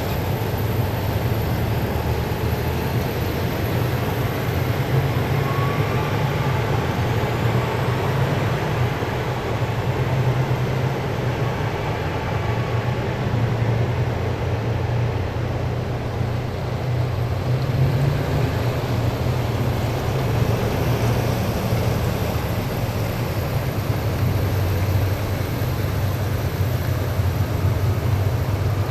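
A column of heavy military vehicles passing steadily, a continuous low engine rumble with tyre and road noise and faint whines coming and going.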